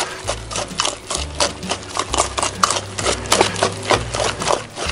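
Wire whisk stirring thick cornmeal batter in a stainless steel bowl, the wires clicking against the metal in a quick, uneven rhythm of about five clicks a second.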